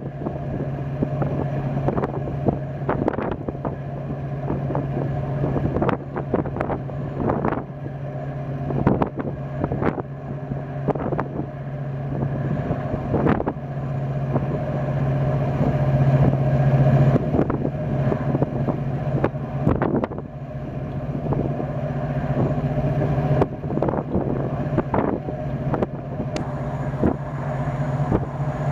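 Two GM 16-645-E5 two-stroke V16 marine diesels running, a deep steady drone from the ship's funnel that swells a little toward the middle and then eases back. Wind buffets the microphone throughout.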